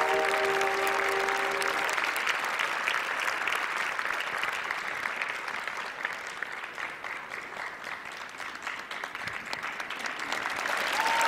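Large audience applauding. The clapping eases off a little past the middle and swells again near the end. A short musical sting fades out in the first couple of seconds.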